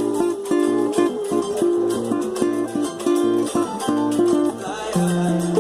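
Music: a plucked string instrument playing a quick, rhythmic run of short notes over a steady beat.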